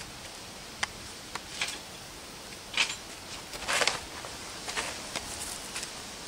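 Scattered light clicks and knocks, about half a dozen at irregular intervals with a small cluster a little after halfway, from tools and parts being handled while the throttle and brake lever clamps on a bicycle handlebar are tightened. A steady faint outdoor hiss runs underneath.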